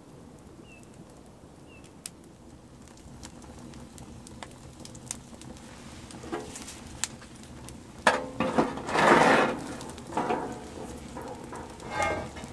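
Wood fire crackling in an open fire pit, with a few short bird chirps about once a second early on. From about eight seconds in, a metal grill grate clatters and scrapes as it is set over the fire. This is the loudest part.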